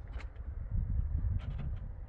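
Wind rumbling on the microphone outdoors, with a few short sharp ticks.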